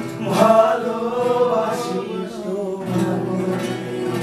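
Live informal singing with instrumental accompaniment: a sung phrase that ends about three seconds in, leaving a held chord.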